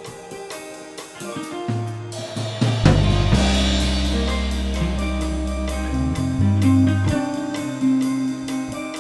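Band music with drum kit, bass and guitar. A cymbal crash comes about two seconds in, over steady bass notes and a regular ticking beat.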